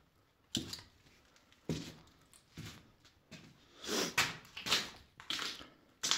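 Footsteps crunching and scuffing over rubble on a concrete floor, an uneven step about every half-second to second, loudest around the middle.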